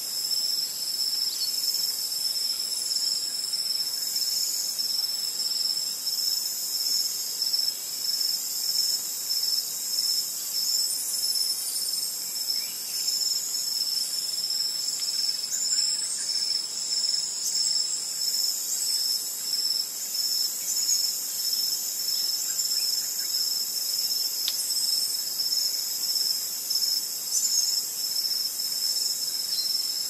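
Dense chorus of rainforest insects, a steady high-pitched buzzing and trilling that carries on without a break, with a few faint high whistled calls over it.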